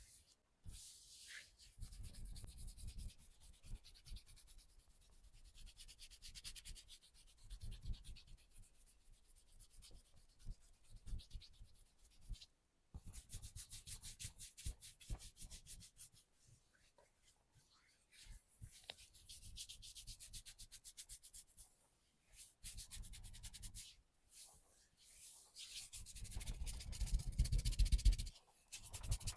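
Hands rubbing and massaging skin in long runs of quick strokes, with a few short pauses and firmer, louder rubbing near the end.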